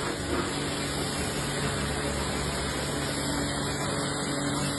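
Pressure washer spraying water against the metal rear doors of a box truck: a steady hiss of spray over the pump's steady hum.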